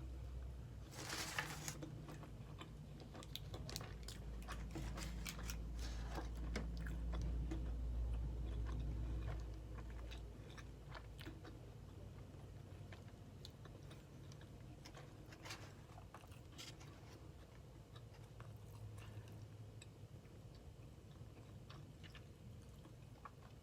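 A person biting into and chewing a crispy fried chicken sandwich close to the microphone, with crunching and mouth clicks; the loudest crunch comes about a second in.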